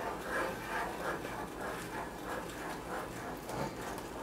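A metal spoon stirring a simmering cream sauce in a saucepan in a steady rhythm, about two to three strokes a second, as grated Parmesan is shaken in from a shaker.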